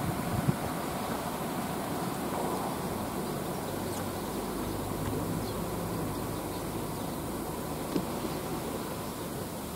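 A steady low buzzing hum over a background rush of noise, with one short click about eight seconds in.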